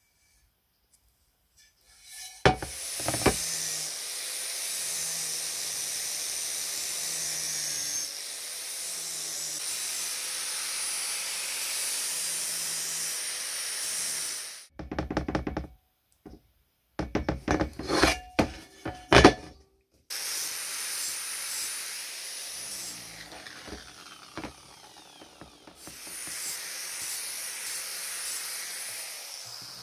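An angle grinder with an abrasive disc runs with a steady high whine and grinding hiss against a cast-metal umbrella-stand base. Midway it stops, followed by a few seconds of sharp knocks and clatter, then it starts again.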